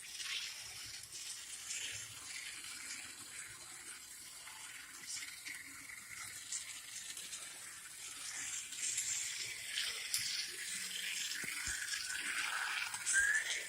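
Small model train running on its track: a steady, faint hissing rattle of the motor and wheels that gets a little louder in the second half. Near the end comes a short whistle-like tone that rises and then eases down.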